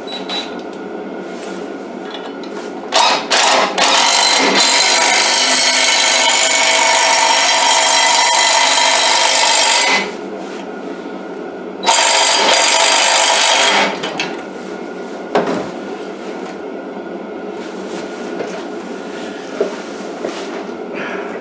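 Cordless impact driver running on the nut of a lawn edger's blade spindle: a couple of short blips about three seconds in, then a long run of about six seconds and another of about two seconds.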